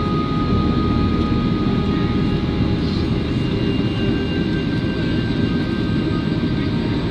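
Steady drone of an airliner heard from inside the passenger cabin in flight: a dense low rumble of engines and rushing air, with a few faint steady whining tones above it.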